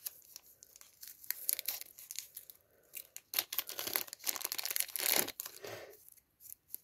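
Small clear zip-lock plastic bag crinkling and rustling as it is handled and opened by hand, in irregular crackles that are heaviest through the middle.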